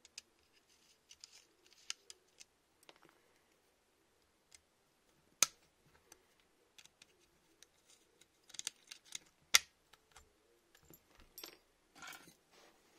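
Scattered clicks, taps and light scraping of small metal and plastic parts being handled while an airsoft electric gun is taken apart: a small screw and the motor end plate from the pistol grip come off and are set down on a desk mat. Two sharper clicks stand out, one about five seconds in and one near ten seconds.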